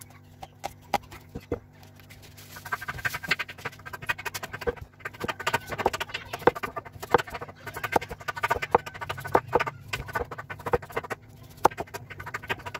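Knife peeling and cutting a young green papaya on a wooden chopping board: quick, crisp cutting strokes and taps of the blade on the board. They are sparse for the first couple of seconds, then come in a rapid, uneven run.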